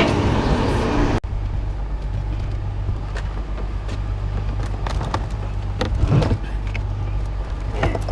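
A vehicle engine idling steadily, with a few short clanks of scrap metal.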